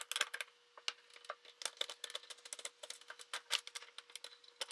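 Metal clicking and ticking of a 14mm open-end wrench working a flanged nut loose: many light, sharp clicks at uneven spacing.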